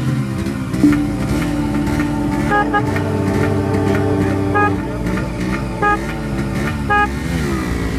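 A motorcycle horn giving four short toots over the steady drone of a motorcycle engine under way.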